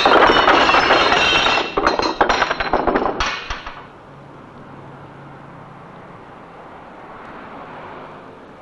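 A sports car crashing into a wooden plant stall: a loud smash, then about two seconds of boards and clay flowerpots clattering and breaking. It then falls quiet apart from a faint low hum.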